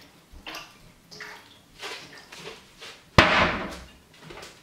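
Kitchen handling noises: a few light knocks and rustles, then one loud clunk a little over three seconds in with a short ringing tail, as a stainless steel cooking pot is fetched.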